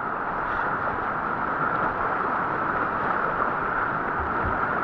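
Whitewater rapid rushing steadily around a kayak running down it.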